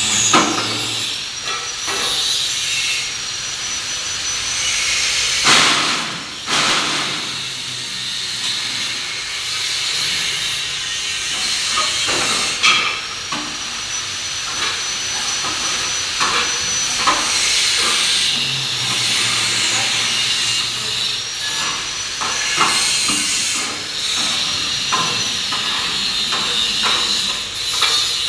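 A vibrating concrete-block press machine at work: its vibrator motor whines up to speed and runs with a steady rattling noise, several times over, with occasional sharp metal knocks from the press.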